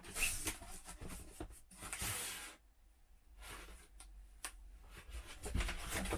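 Rustling and handling noises as a sweatshirt is taken out of its packaging and unfolded: a noisy rustle for the first couple of seconds, then a few light clicks, then more rustling near the end.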